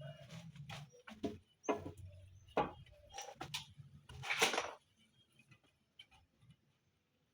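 Broiler chickens calling: a handful of short, irregular calls in the first five seconds, then it goes quiet.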